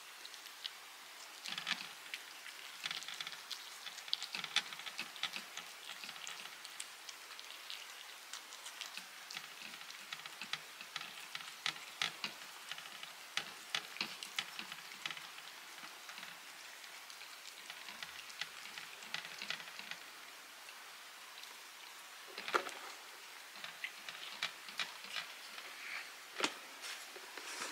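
Two cats eating meat treats from small plates: a busy, irregular run of wet clicks, smacks and crunches from chewing and licking.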